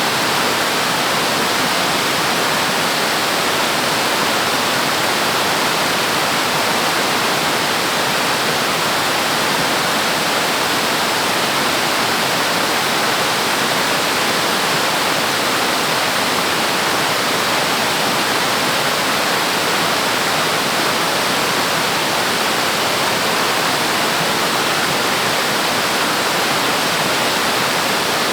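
Waterfall roaring steadily close to the microphone, a loud, even rush of falling water with no breaks.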